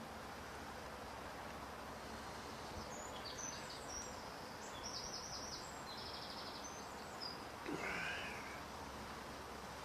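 Steady background hiss with faint, high bird chirps and short trills in the middle. About eight seconds in comes one louder, brief call-like chirp.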